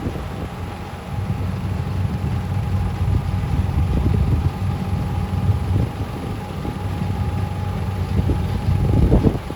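Heavy snow-removal machinery running steadily: a low engine rumble with a constant whine over it. Gusts of wind buffet the microphone, hardest near the end.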